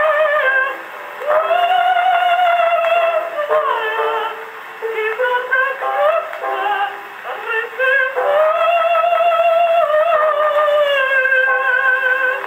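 Acoustic horn gramophone playing a 1907 record of a woman singing a song in Russian, long held notes with a wide vibrato. The sound is thin, with no deep bass and no high treble, as on an early acoustic recording.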